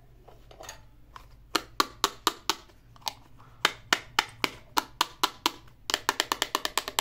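A run of sharp taps, about four a second in short runs, then a faster run of about ten a second near the end.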